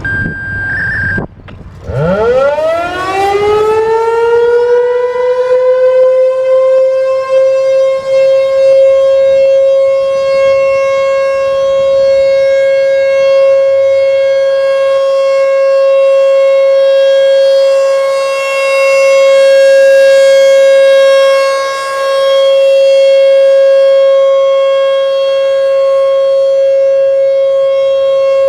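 American Signal T-128 outdoor warning siren sounding for a test. It winds up from a low growl to one steady, very loud wail within about three seconds, then holds the tone, its loudness swelling and dipping as the siren head rotates.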